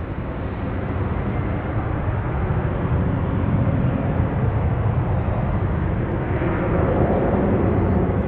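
Jet engine noise of a LATAM Boeing 787 Dreamliner on short final approach, a steady rumble that grows louder as the airliner descends toward the runway.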